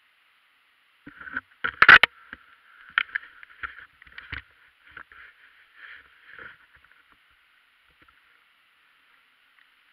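Muffled knocks, scrapes and rustling as a bike-mounted action camera is jostled. The sounds are thin and boxed in, loudest about two seconds in, and die away after about six and a half seconds.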